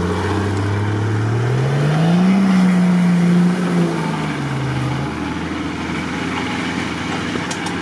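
Off-road SUV engine revving under load as it pushes through deep mud ruts. Its pitch climbs over the first two seconds or so, holds high, then falls back about four to five seconds in, and it keeps running more steadily after that.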